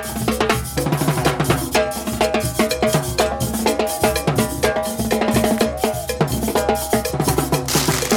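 Brass band (banda de músicos) playing a dance tune: a wind and brass melody over a steady beat of bass drum, snare and other percussion.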